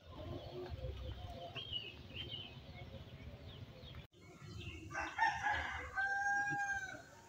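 Faint outdoor ambience with a few short bird chirps, then about five seconds in a rooster crows, ending on one long held note.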